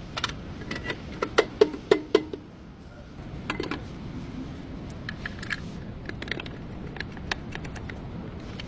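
Metal tools and brake parts being handled: a quick run of sharp, ringing metallic clinks about a second in, then scattered lighter taps and ticks over a steady low background hum.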